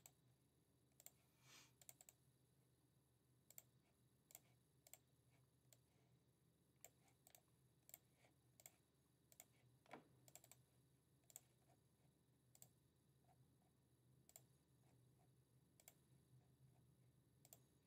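Faint, irregular clicking of a computer mouse and keyboard, a click or two every second or so, over near silence.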